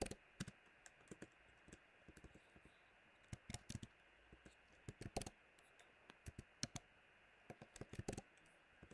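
Faint keystrokes on a computer keyboard, typed in short irregular clusters of clicks with pauses between them.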